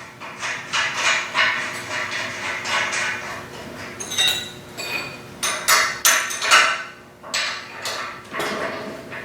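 Metal parts and tools clanking and knocking together in a run of irregular sharp strikes, with a couple of brief metallic rings about four to five seconds in.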